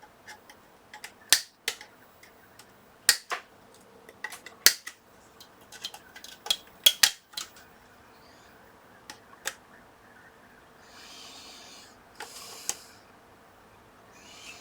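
Side cutters snipping through the metal legs of a power switch on a circuit board: a series of sharp, irregular clicks and snaps, about a dozen, with a couple of soft hisses near the end.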